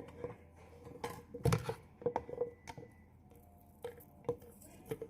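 Kitchenware being handled: a string of irregular clinks and knocks of dishes or glassware, each with a short ring. The loudest, about one and a half seconds in, lands with a dull thump.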